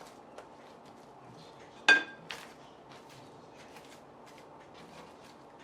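A single sharp clink with a brief ring about two seconds in, like a kitchen utensil striking a dish, then a softer knock, amid faint small clicks of handling.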